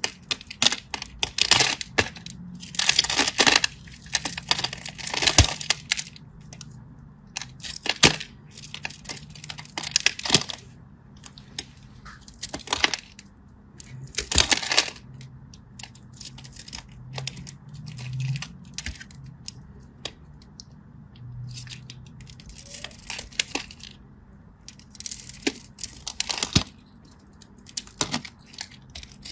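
Crisp crackling and crunching of a brittle material being broken or crushed by hand, in short clusters with sharp clicks every second or two.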